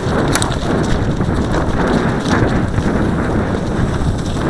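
Hoofbeats of cantering horses, with wind buffeting a helmet-mounted camera microphone.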